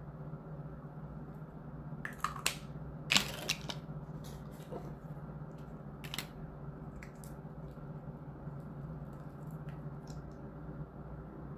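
Makeup containers being handled: a few sharp clicks and taps, a cluster about two to four seconds in and one more about six seconds in, over a steady low hum in the room.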